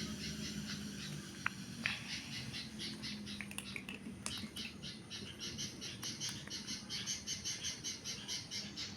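Rapid, even high-pitched chirping, about five chirps a second, with a few faint clicks.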